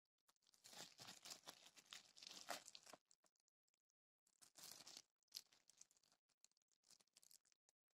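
Faint crinkling and crackling of the plastic shrink-wrap on a sealed cardboard display as it is handled. It comes in a dense burst for the first three seconds, a second burst about four and a half seconds in, then scattered crackles.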